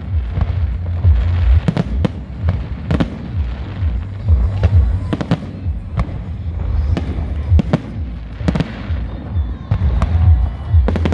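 Fireworks display: aerial shells bursting overhead in a steady barrage, sharp bangs about once a second over a continuous low rumble.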